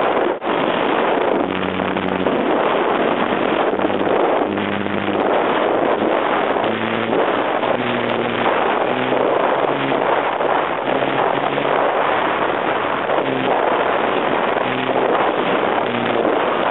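Loud, steady wind rush from air blowing over the microphone of a camera mounted on a flying RC plane. Short low hums come and go from about a second and a half in.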